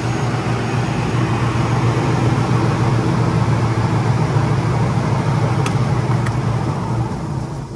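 Kundig Master 1350 twin-belt wide belt sander running with a steady low hum and motor noise. Two light clicks come about six seconds in as it is shut off at the emergency stop, and it starts to wind down near the end.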